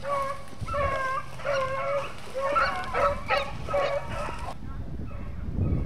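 Beagles baying on a rabbit chase: a run of short yelping calls, about two a second, that stops abruptly about four and a half seconds in. After that only faint calls remain.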